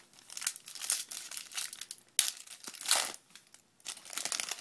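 Football trading cards being handled and flipped through by hand: a run of quick papery swishes and crinkles, in several clusters.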